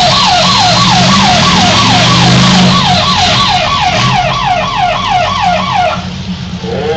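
Siren sounding a fast up-and-down warble, about three sweeps a second, that cuts off abruptly near the end, over demolition derby car engines running. With a red flag shown at the same moment, it is the signal to halt the cars.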